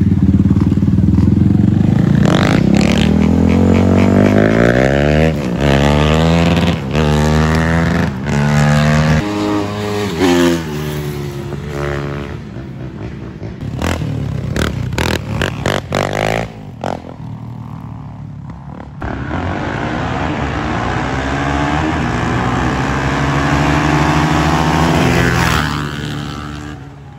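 Sport ATV engines revving hard and accelerating, the pitch climbing in repeated sweeps. Through the middle comes a choppy stretch of short on-off revs, then one long climbing run that fades away near the end.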